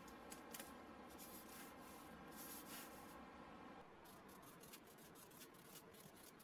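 Faint strokes of a marker pen writing on a sheet of paper. The quick scratchy strokes crowd together in the second half as a line is written.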